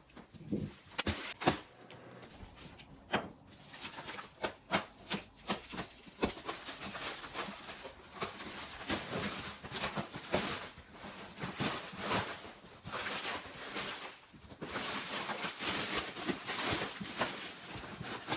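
Packaging being handled and torn open: plastic wrap and cardboard crinkling and rustling, with scattered knocks and scrapes, a few louder ones near the start.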